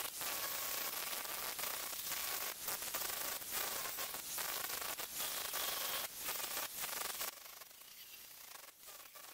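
Angle grinder grinding rusted steel with an abrasive disc: a harsh grinding noise over a steady motor whine, dipping briefly now and then as the disc eases off the metal. The sound drops sharply to a much quieter level about seven seconds in.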